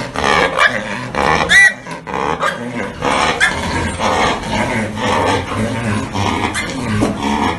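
Domestic pigs from a herd with an influenza type A outbreak grunting in their pen, with a short high squeal about one and a half seconds in.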